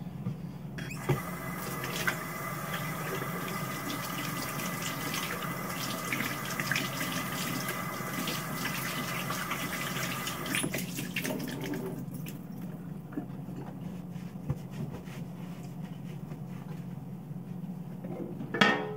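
Kitchen sink tap running while hands are washed and rubbed under the stream. The water stops about twelve seconds in, leaving a few faint clicks, then a single sharp knock near the end.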